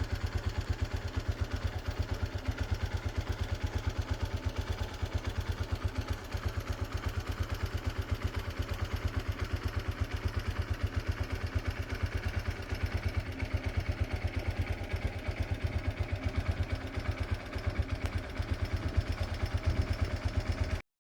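A vehicle engine running with a steady, rapid throb of about five pulses a second, cutting off abruptly near the end.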